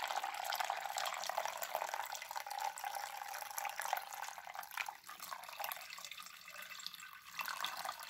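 Warm water poured in a steady stream from a glass bottle onto ground coffee in a paper filter, splashing and trickling; the pour grows a little softer in the second half.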